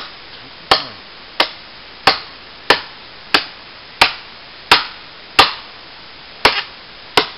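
An Ontario military machete chopping into a fallen deadwood branch with about ten sharp, evenly paced blows, roughly one every two-thirds of a second. There is a slightly longer pause before the last two strokes.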